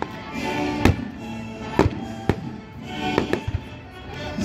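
Fireworks going off in about five sharp bangs, two of them close together near the end, over a live orchestra playing.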